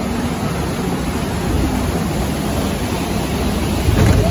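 Rushing water along a ride boat's flume channel, a steady loud rush that swells about four seconds in as the boat tips down the water slope.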